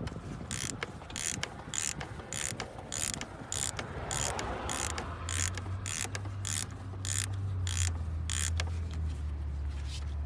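Hand socket ratchet clicking over in quick back-and-forth strokes, about two to three a second, as a bolt is backed out. The clicking stops near the end.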